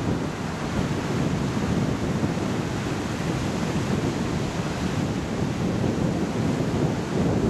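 Strong wind buffeting the microphone, a steady low rushing and fluttering roar.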